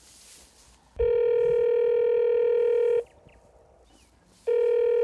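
A phone ringing with a steady electronic ring tone. There are two long rings: the first lasts about two seconds, and after a pause of about a second and a half the second begins near the end.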